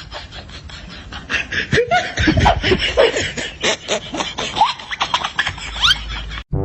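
People laughing in short bursts, with scattered clicks and knocks. The sound cuts off abruptly near the end.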